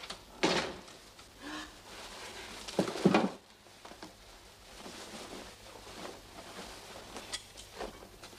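Someone coming in with shopping: a bump about half a second in, then a louder double thud about three seconds in as the wrapped parcels and a tin are set down on the kitchen table. Soft rustling of paper and a coat follows, with light taps.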